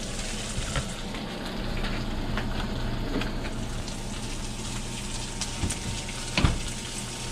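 Steady sizzle of fish frying in skillets on the stove, with a few light clicks, and the oven door shutting with a thump about six and a half seconds in.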